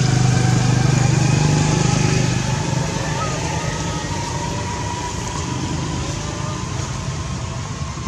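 A motor vehicle's engine running steadily, its low hum strongest for the first two and a half seconds and then easing off.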